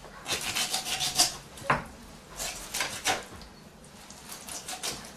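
Kitchen knife cutting through raw chicken skin and the hip joint to take off a thigh: irregular scraping, crackling strokes with a few sharp clicks, busiest in the first three seconds and fading towards the end.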